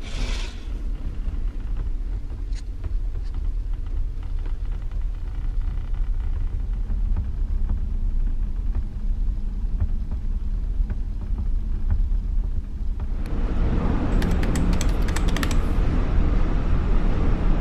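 Steady low rumble of a large ferry's engines and hull vibration, heard from inside a passenger cabin, with a brief curtain rustle at the start. About thirteen seconds in it turns into a brighter, louder hum and hiss with a quick run of clicks.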